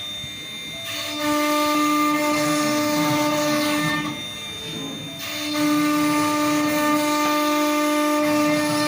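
CNC router spindle running with a steady high whine while the bit cuts wood, with a hiss of cutting on top. It is louder from about a second in and again from about halfway, with a quieter dip between the two stretches.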